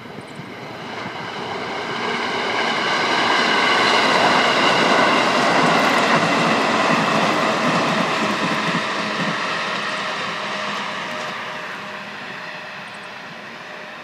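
An electric train on the JR Utsunomiya Line passing by. It grows louder over the first few seconds, peaks about four to six seconds in, then fades, with a steady whine of several tones over the running noise.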